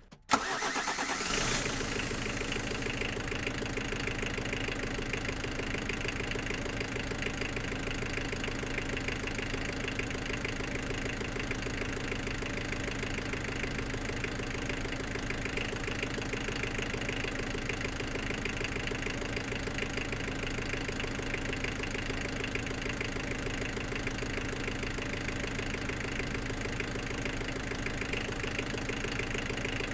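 A machine starts abruptly and then runs steadily with a fast, even mechanical chatter.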